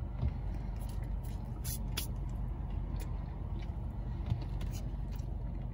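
Steady low rumble of a car heard from inside the cabin, typical of an idling engine, with a few short clicks about two seconds in.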